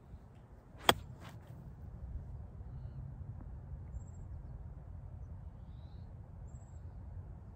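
An iron strikes a golf ball on a short pitch shot about a second in: one sharp click, with a couple of fainter brushing sounds just after. A few short high bird chirps come later over a low steady rumble.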